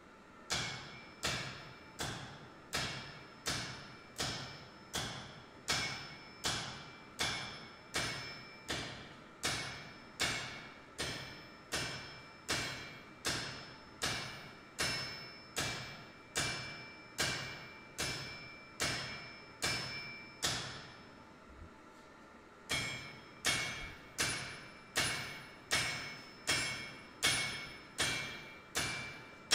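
Hand hammer forging glowing hot steel on an anvil: steady blows, a little under two a second, each with a bright ringing anvil tone. The blows pause briefly about two-thirds of the way through, then resume.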